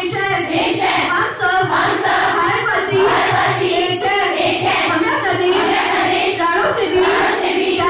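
A large group of schoolgirls' voices in unison, chanting with a sung quality, steady and without a break.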